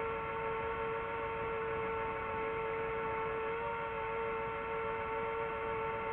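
DJI FPV drone's motors and propellers running in flight: a steady hum made of one strong tone and its overtones, its pitch wavering slightly.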